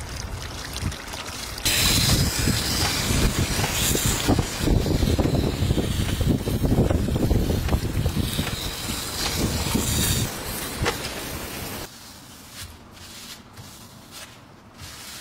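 Steel bread-cutter blade held against a large spinning wet grinding stone: a loud, rough grinding rasp starts about two seconds in, runs for about eight seconds and then dies away. Near the end, soft rustling as a cloth wipes the blade.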